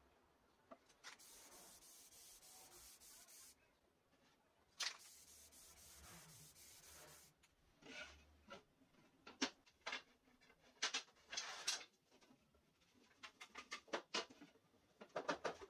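Light wooden knocks and clatter as wooden dowels and drilled pine slats are picked up and set down on a table, clustered in the second half. Earlier, two stretches of soft high hiss.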